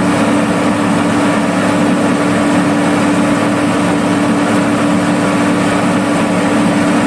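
Engine of a tracked construction machine, marked GT 6300, running steadily at a constant speed, with a strong, unchanging low tone.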